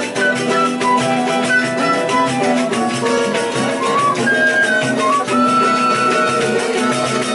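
Live acoustic choro ensemble playing: flute carries the melody over a steady strummed rhythm from cavaquinho and seven-string guitars, with accordion and cello filling in.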